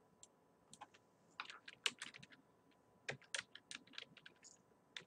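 Faint typing on a computer keyboard: two short runs of irregular key clicks.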